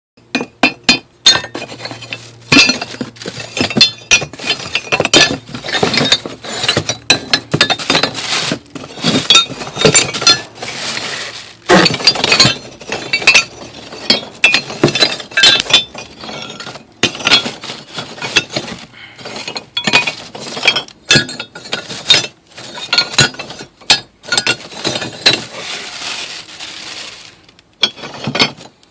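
Sticks of binchotan (Japanese white charcoal) knocked against each other over and over, giving many sharp, glassy clinks with a bright metallic ring. That ring is how good binchotan should sound when struck.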